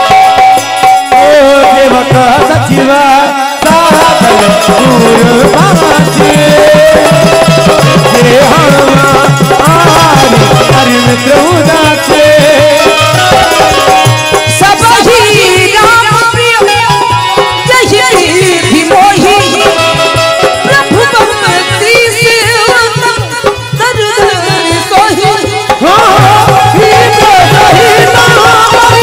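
Devotional Ramayan chaupai music: a dholak drumming a quick steady rhythm under harmonium and keyed banjo, with a voice singing the melody.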